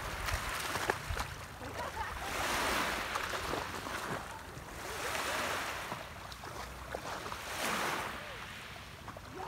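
Small sea waves washing onto a pebbly shore, the surf swelling and fading about every two and a half seconds, with splashing as a person and a dog wade into the shallows.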